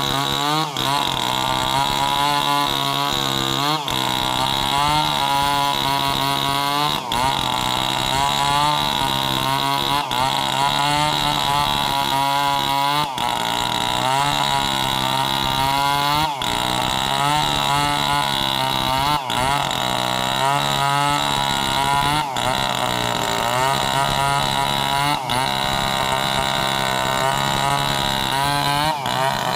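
Two-stroke chainsaw running at high revs as it cuts sengon wood, its pitch wavering under load, with a brief drop about every three seconds.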